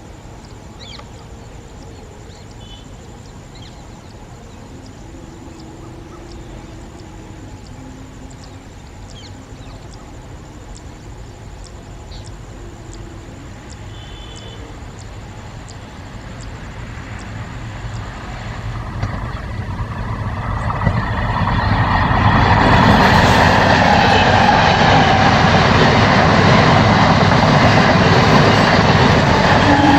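A train approaches and runs past. The first part is faint background, then a loud, steady rolling noise from the wheels and track builds over the last third and holds to the end.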